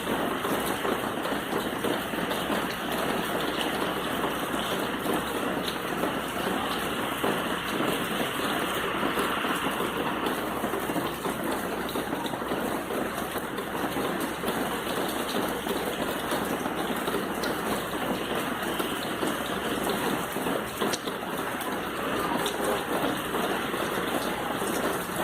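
Steady rain falling, an even, unbroken rush.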